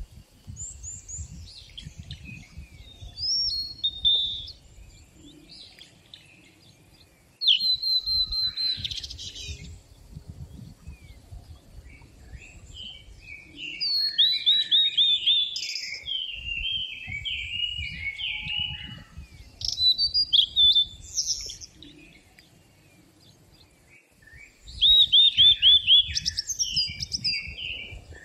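Songbirds singing, several songs overlapping in phrases a few seconds apart. Some phrases open with a quick run of repeated high notes, followed by twittering.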